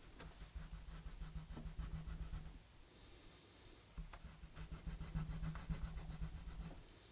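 Colored pencil rubbed quickly back and forth on paper while shading: two bouts of rapid scratchy strokes, each about two and a half seconds long, with a pause between them.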